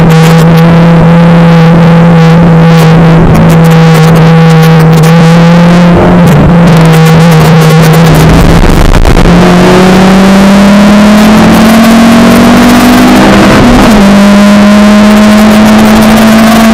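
Honda Civic EP3 Type R's 2.0-litre K20A2 i-VTEC four-cylinder, with aftermarket intake and exhaust, heard loud from inside the cabin on track. It holds steady high revs for several seconds, breaks off briefly around eight seconds in, then comes back higher and keeps climbing slowly under acceleration.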